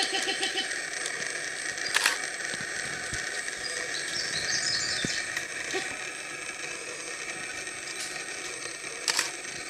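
Forest ambience: a steady high insect drone, a brief run of bird chirps about four seconds in, and two sharp clicks, one about two seconds in and one near the end.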